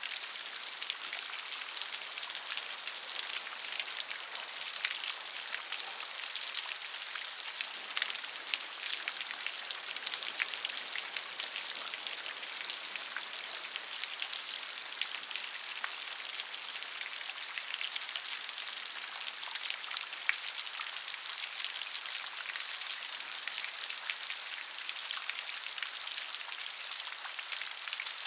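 Steady rain falling, with many individual drops ticking on a surface over an even hiss.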